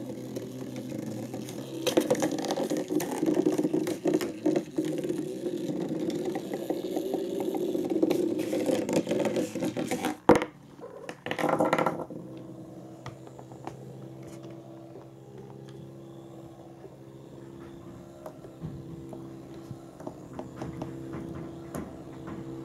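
Battery-powered toy mouse (Petio Crazy Mouse) whirring as its small motor drives it about, rattling and scraping against a cardboard box and wooden floor. The clattering and knocks are densest in the first half, with one sharp knock about ten seconds in, then it settles to a quieter, steady whir with a few light ticks.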